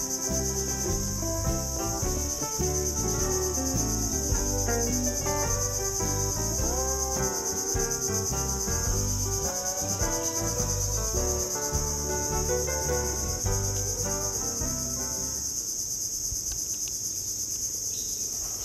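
A steady, high-pitched chorus of insects buzzing, with background music over it that stops near the end.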